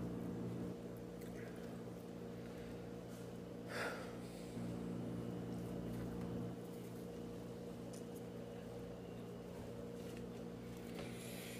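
A person quietly chewing a mouthful of toast over a steady low electrical hum, with a short noisy breath about four seconds in.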